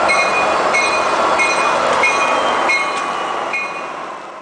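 Tri-Rail commuter train's diesel locomotive pulling into the platform, with the rumble of engine and wheels under a bell ringing about once every 0.7 s. The sound fades away near the end.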